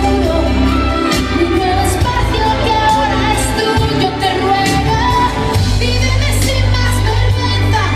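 Loud pop song with a singer over heavy bass and a steady beat.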